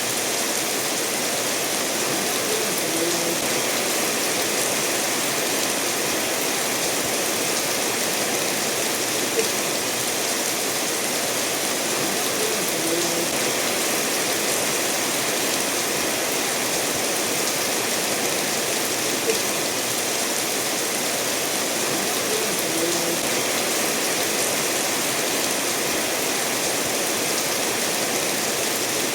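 Steady rain falling together with a stream running over stones: a continuous, even hiss of water, with an occasional sharper drop standing out.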